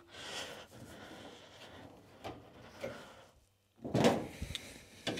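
Handling noises from taking apart a stainless steel incubator drum: faint scrapes and small clicks of metal parts being worked on, then a louder clatter about four seconds in.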